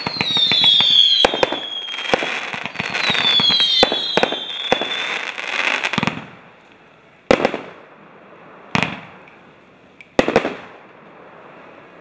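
Jorge M52 firework battery firing: two whistles falling in pitch over a rapid run of cracks and bangs in the first five seconds, then three single bangs about a second and a half apart as the shots burst.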